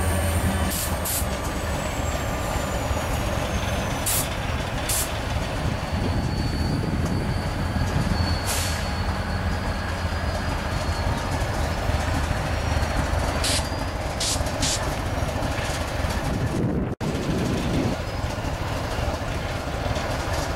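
Diesel freight locomotive rumbling steadily as freight cars pass, with several short hisses of air from the brakes.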